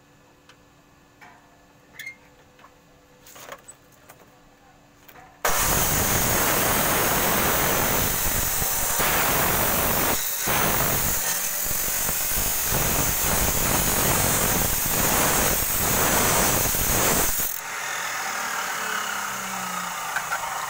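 A few light clicks and knocks as the metal tube is positioned, then about five seconds in a Makita abrasive cut-off saw starts suddenly and its disc grinds loudly through steel tubing for about twelve seconds. Near the end the saw is released and the disc spins down with a falling whine.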